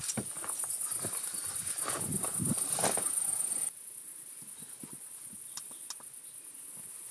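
Crickets chirring in a fast, steady, high-pitched trill, with soft rustles and small knocks of someone moving close by. The whole sound drops quieter a little past halfway and cuts off suddenly at the end.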